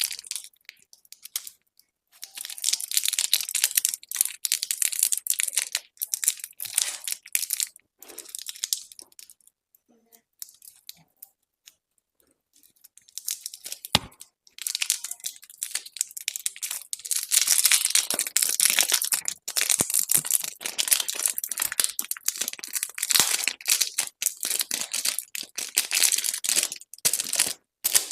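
Candy wrappers crinkling and tearing open in bursts, with a quieter pause and a single sharp click midway, then steady crinkling for the second half.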